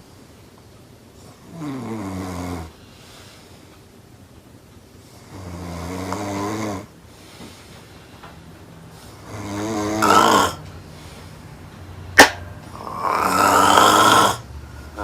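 A woman snoring loudly in her sleep: four snores at roughly four-second intervals, the later ones louder. A single sharp click comes just before the last snore.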